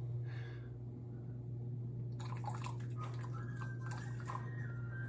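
Water poured from a glass measuring cup into a glass mixing bowl of peanut-butter sauce, trickling and dripping, over a steady low hum.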